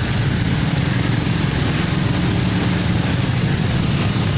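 Motorcycle engine running steadily under way, with continuous road noise.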